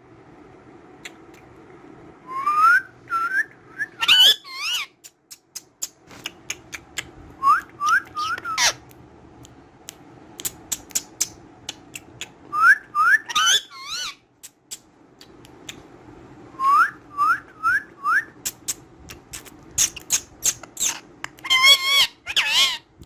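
Ringneck parrot whistling short rising notes in quick groups of three or four, again and again, with shrill calls and clicking in between.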